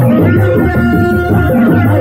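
Reak ensemble music: hand-beaten dogdog drums keep a driving, even rhythm, with a held melodic line over them.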